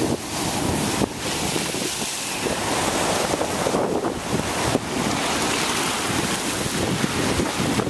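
Ocean surf surging into a narrow lava-rock inlet and foaming over the rocks, a steady wash of water, with wind buffeting the microphone.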